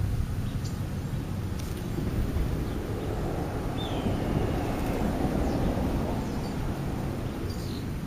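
Steady low outdoor rumble that swells for a few seconds in the middle, with a few faint, short, high bird calls over it, one a brief falling whistle.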